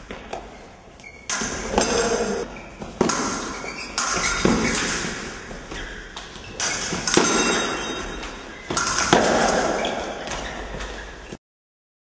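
Fencing bout: irregular sharp thuds of feet stamping and lunging on the piste and metallic clinks of the fencing blades, each ringing out in a large hall, about eight hits in all. The sound cuts off abruptly near the end.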